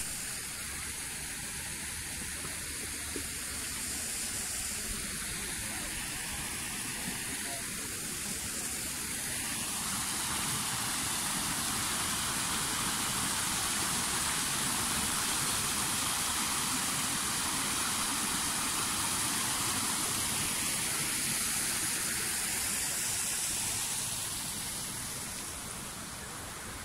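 Steady rushing hiss of running water that swells in the middle and eases off near the end.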